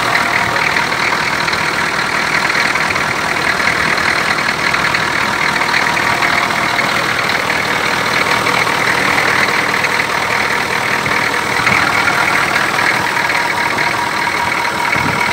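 Detroit Diesel 6.2-litre V8 diesel idling steadily, heard close up in the engine bay.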